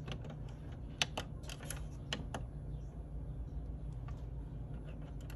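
Light clicks of buttons being pressed on an Epson WorkForce WF-7210 printer's control panel while moving through its menu, a quick run of them in the first two and a half seconds and a few more later, over a low steady hum.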